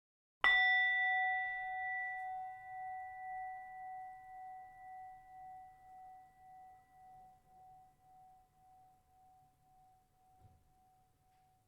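A bell struck once, ringing out with several overtones and fading slowly, its tone pulsing in a slow wavering beat as it dies away.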